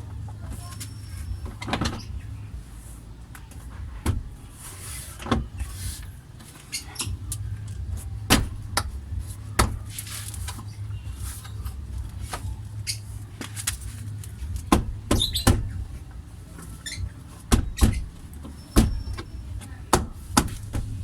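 Plastic car door trim being handled and pushed into place: a string of sharp clicks and knocks at irregular intervals, with short scraping and rubbing between them, over a steady low hum.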